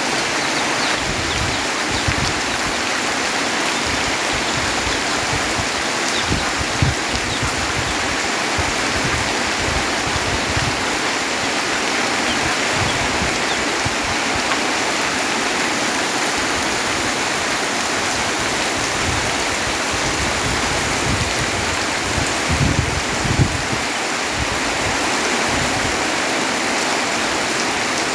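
Heavy rain falling steadily, a dense even hiss of pouring water, with a few brief low thuds, the loudest near the end.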